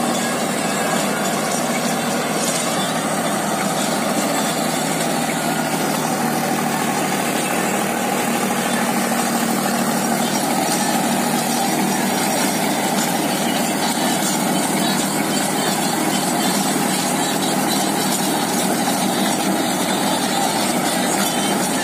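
Deutz-Fahr Agrolux 75 tractor's diesel engine running steadily under load, driving a rear-mounted rotavator as it tills the soil.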